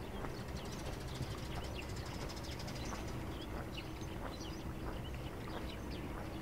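Footsteps walking on a paved path while small birds chirp all around, over a steady low hum of distant traffic or machinery. A rapid fine ticking or trill joins high up between about one and three seconds in.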